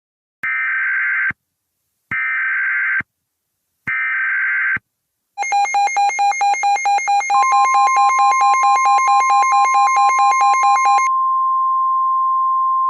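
Emergency Alert System header sequence on NOAA Weather Radio: three bursts of screechy digital SAME data, about a second each, announcing a new warning. Then comes an alert tone pulsing about four times a second, joined by the steady weather-radio warning alarm tone, which carries on alone for the last couple of seconds.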